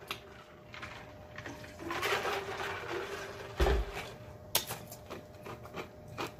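A person drinking from a mug: sips and swallows for a couple of seconds, then a single low thump a little past halfway, followed by a few short wet mouth clicks.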